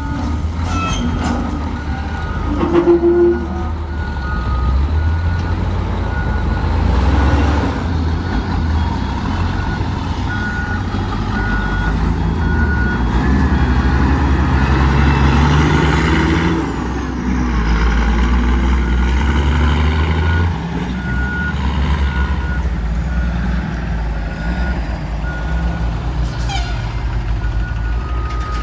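Heavy diesel engines of a wheel loader and dump trucks running under load, with a backup alarm beeping repeatedly over them. A short hiss of air comes near the end.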